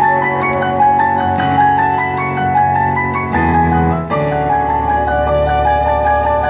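Yamaha Montage 8 synthesizer played by two keyboardists at once, four hands on one keyboard: a melody stepping over held low bass notes that change every second or two.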